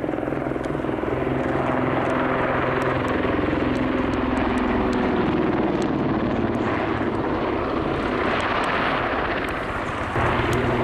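Swiss Air Force Super Puma-family twin-turbine helicopter flying low overhead, its main rotor beating rapidly over the steady noise of its turbines. The level holds steady, sags slightly near the end, then jumps back up as it banks away.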